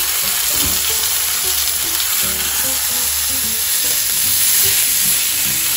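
Two seasoned blocks of beef round searing in oil in a frying pan, sizzling steadily.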